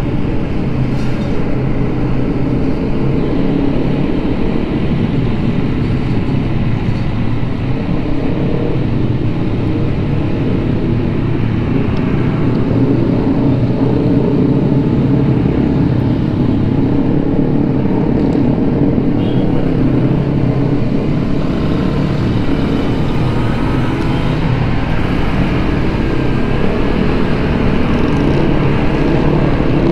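Vespa Sprint S scooter's single-cylinder four-stroke engine running steadily at cruising speed, heard from the rider's seat with road and wind noise.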